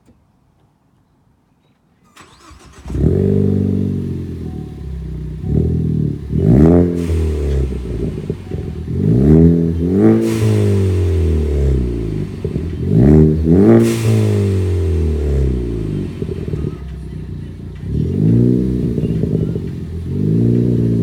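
2013 Ford Focus ST's turbocharged 2.0-litre four-cylinder, through an aftermarket Injen SES9001TT cat-back exhaust, cold-starting about two seconds in. It catches and idles, then is revved up and let fall back several times in short blips.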